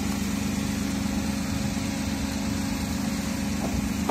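Small car's engine idling steadily, then a car door is slammed shut at the very end.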